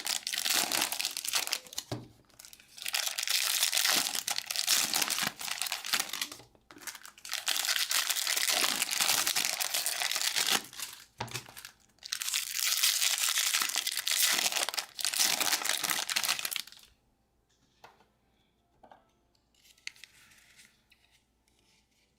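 Card-pack wrappers crinkling and tearing as packs are ripped open and handled, in four long bouts of loud rustling with short gaps. The rustling stops about seventeen seconds in, leaving only a few faint taps.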